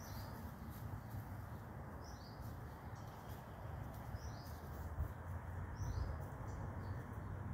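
A songbird giving short, high two-note chirps about every two seconds, four times, over a steady low background rumble.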